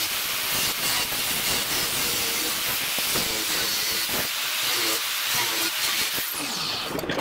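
Angle grinder with a thin cutoff wheel cutting through steel plate: a steady, loud grinding hiss, with the motor's hum wavering in pitch as the wheel loads in the cut. Near the end the cutting stops.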